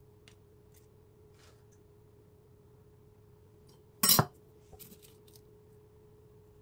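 A metal bread knife is set down on a wooden cutting board with one sharp clatter about four seconds in, followed by a few lighter knocks. Before that there are faint ticks of crushed walnuts being sprinkled, over a steady faint hum.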